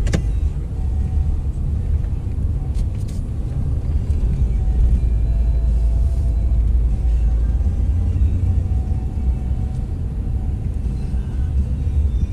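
Steady low rumble of a car driving at highway speed, heard from inside the cabin, with music playing faintly over it. A sharp click right at the start.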